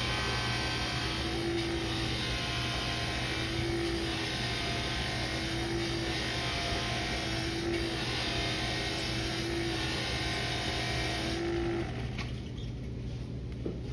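Buffing machine running with its wheel hissing against a brass trombone bell, which is being polished with buffing compound. A low hum runs underneath and a tone swells about every two seconds. About twelve seconds in, the hiss drops away as the bell comes off the wheel, leaving the motor's hum.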